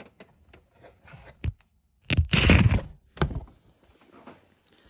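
Knocks and clattering handling noise: light clicks, then a loud thump with rustling about two seconds in and another sharp knock just after.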